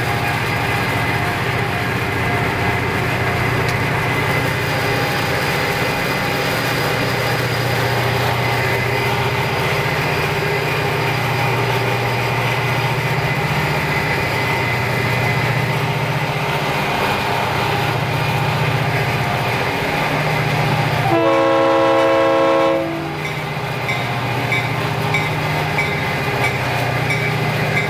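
Diesel freight locomotive running at speed alongside, a steady low engine drone mixed with wind and road noise, and one horn blast of nearly two seconds about three quarters of the way through.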